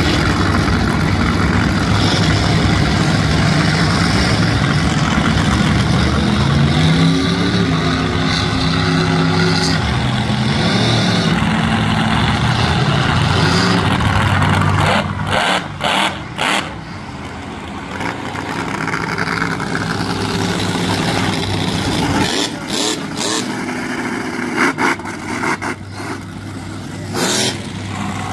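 Monster truck engines running and revving, with engine pitch rising several seconds in. The sound cuts out briefly several times in the second half.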